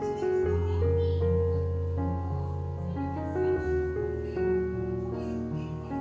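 Soft instrumental background music: held chords over long, steady bass notes, the harmony changing every second or so.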